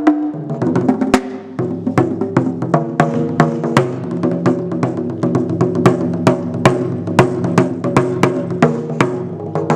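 Taiko drums played in a steady, driving rhythm of about three strikes a second. Each strike rings with a deep drum tone.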